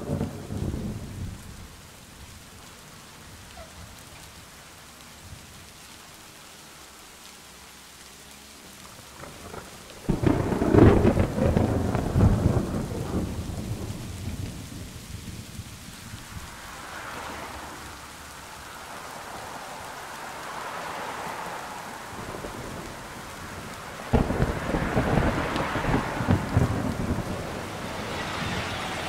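Rain on a bus window, heard from inside as a steady hiss. Two loud low rumbles start suddenly, about ten seconds in and again near the end, and each dies away over several seconds.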